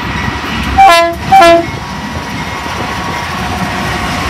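Two short blasts of the lead BNSF Dash 9 locomotive's air horn, about half a second apart, over the steady rumble and wheel noise of the locomotives rolling past close by.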